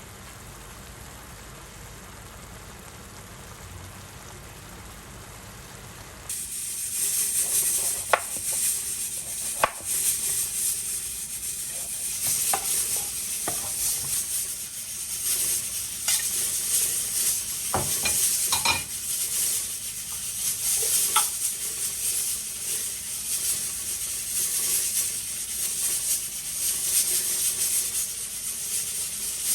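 Food sizzling as it fries in a pan, starting suddenly about six seconds in, with a utensil knocking and scraping against the pan now and then as it is stirred. Before the sizzle, only a faint low hum.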